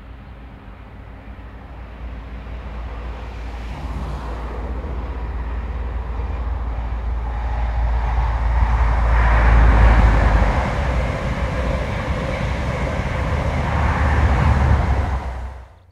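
InterCity 125 High Speed Train passing at speed: diesel power-car engine and wheels on rail, growing steadily louder as it approaches and peaking about two-thirds of the way through, with a second rise near the end before the sound cuts off suddenly.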